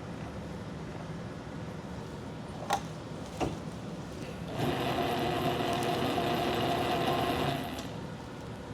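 South Bend 9-inch bench lathe running with a steady hum. Two sharp clicks come a little before the middle. Then a louder mechanical whir with a whine in it sets in for about three seconds and dies away near the end.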